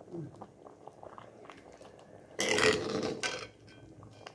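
A metal ladle stirring thick, simmering mixed-bean dal in a pan: soft wet clicks and bubbling, with one louder noisy burst lasting about a second around halfway through.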